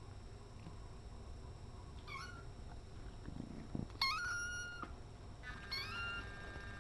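Kitten meowing three times in high-pitched calls, the middle one longest.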